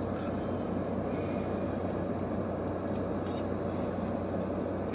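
Steady low hum and rush of a vehicle running, heard from inside its cabin, with a faint tick or two.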